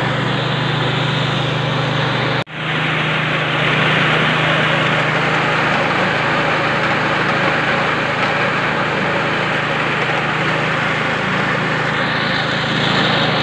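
KD 820 Pro mini rice mill and its engine running steadily, with a constant hum and a dense mechanical noise. The sound cuts out briefly about two and a half seconds in, then resumes.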